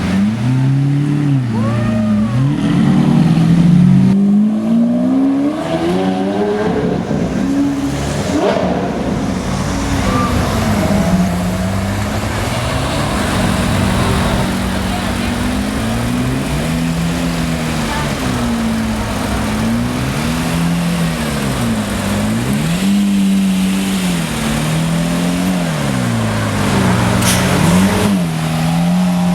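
Supercar engines revving over and over, the engine note rising and falling about every two seconds as the throttle is blipped.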